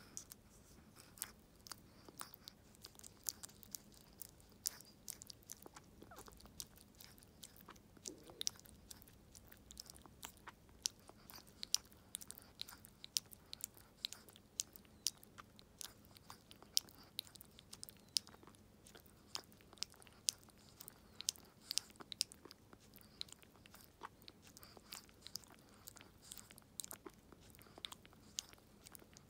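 Chihuahua licking and smacking at the tip of a feeding syringe as liquid food is squeezed into her mouth: faint, wet tongue clicks and lip smacks, several a second.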